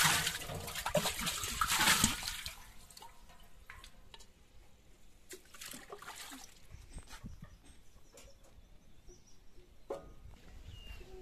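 Water splashing and sloshing as terracotta clay pots are washed by hand in a pot of water, loudest for the first two seconds or so, then quieter with scattered light knocks.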